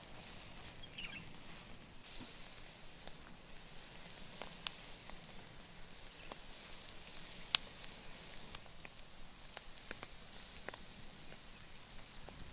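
Hot coals under a spit-roasted whole pig crackling: a steady faint hiss with scattered sharp pops and snaps, the loudest about four and a half and seven and a half seconds in.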